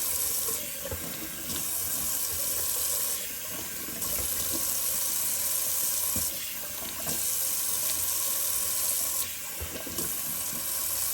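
Cold water running from a bathroom tap into a sink for a face rinse after a shave. The hiss of the stream softens briefly every two or three seconds.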